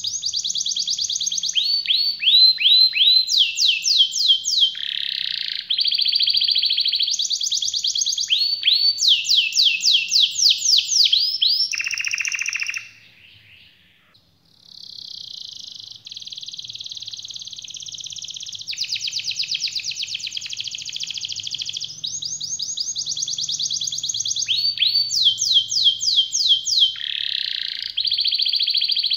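Red canary singing a long song of rolling trills, each a fast run of repeated high notes, switching from one trill to the next every second or so, with a short pause about halfway through.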